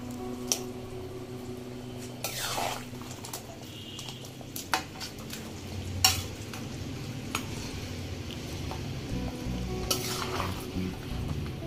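Spatula stirring and scraping in a kadai of simmering fish-head and potato curry, with a few sharp metal clinks, the loudest about six seconds in, and two brief swishing scrapes.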